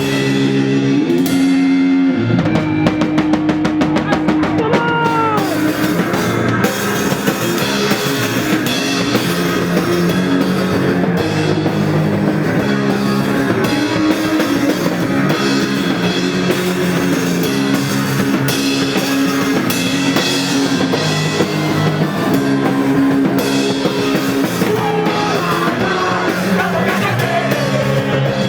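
Rock music with a drum kit and electric guitar, starting with the guitar alone and the drums coming in about two seconds in.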